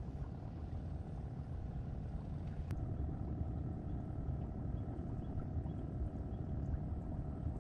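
Steady low rumble of wind on the microphone at an open pond bank, with a faint click a few seconds in.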